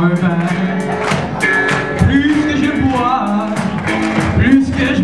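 Live band playing a rock song: a drum kit beating steadily under a strummed acoustic guitar, with held and sliding melodic notes.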